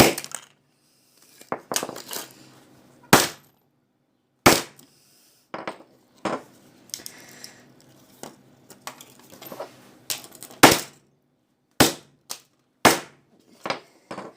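Sharp, separate knocks and cracks as a mobile phone's casing is smashed apart, about a dozen blows spaced irregularly a second or so apart.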